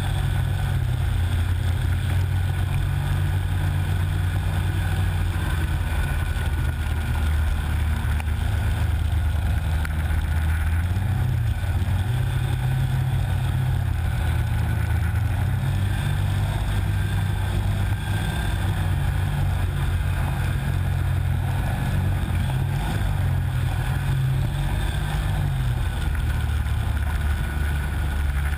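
Snowmobile engine running steadily while riding through deep powder, heard from on board, its pitch rising and falling several times as the throttle changes.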